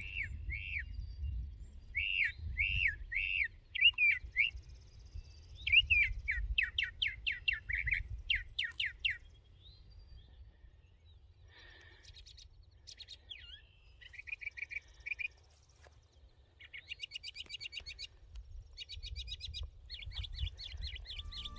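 Songbirds singing: a series of clear, slurred, repeated notes, then a run of quick falling notes, with fainter, buzzier phrases from about halfway on.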